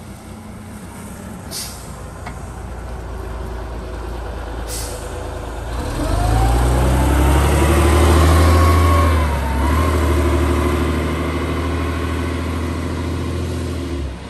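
1990 Leyland Olympian double-decker bus's diesel engine pulling away and driving past, growing louder to a peak about eight seconds in, with a whine that rises in pitch and dips briefly a little later. Two short hisses of air come in the first five seconds, and the sound cuts off just before the end.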